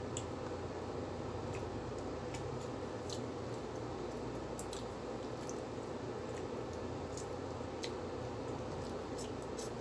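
A person eating with her hands and chewing, with scattered small wet clicks and smacks at irregular moments, over a steady background hum.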